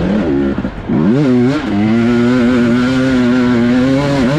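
Motocross bike engine under race throttle. It eases off in the first second, revs rise about a second in and hold high and steady, then fall off near the end.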